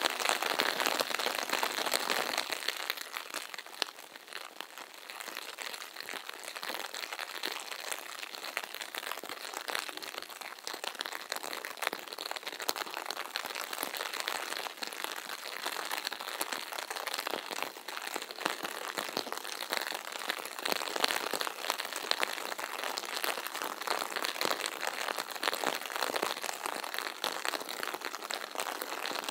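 Brown bear cropping and chewing wet grass: a continuous dense crackling and crunching of many small snaps, a little louder in the first two seconds.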